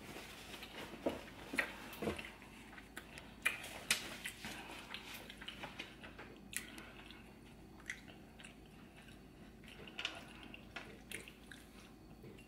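Close-up eating sounds: wet chewing, biting and lip smacks on seafood boil in a garlic butter sauce. They come as irregular sticky clicks and squishes, a few louder smacks standing out.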